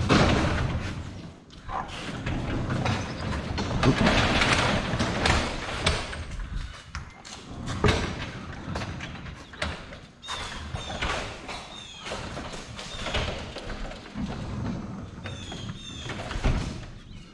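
A large metal freezer being shoved and worked against a door frame: scraping of metal on wood and metal, with repeated knocks and thumps. Short high squeaks come in the later part.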